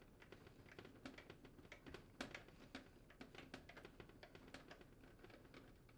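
Faint, irregular small clicks and taps of a nut driver unthreading a screw and a grounding wire being handled on a range's sheet-metal rear panel.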